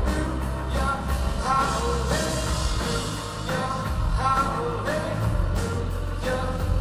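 Rock song with a singing voice over a steady drum beat.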